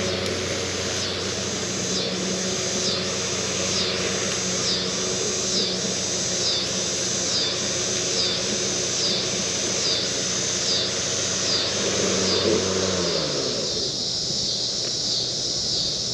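EGO Power+ LM2125SP 56-volt battery lawn mower running with a steady hum like a big floor fan, then winding down about thirteen seconds in as it is shut off. Cicadas sing throughout in a pulsing rhythm of about one pulse a second, carrying on alone after the mower stops.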